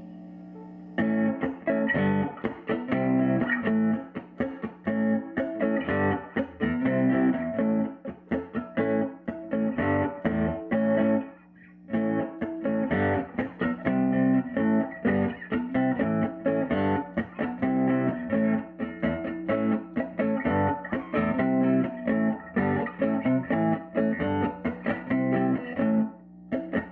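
Electric guitar, a reissue Fender Mustang, played through a 1951 Gibson BR-6 tube amplifier turned up to about 6, where it is starting to break up into light overdrive. The amp's steady hum is heard alone at first, then picked riffs start about a second in, with a short pause near the middle.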